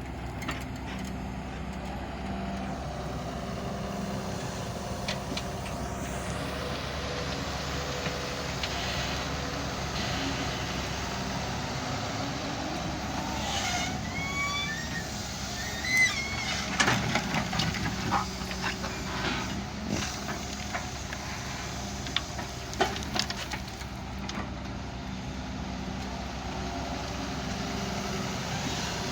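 Hydraulic excavator's diesel engine running steadily. In the middle come a run of brief metallic squeaks and several clanks as the machine works.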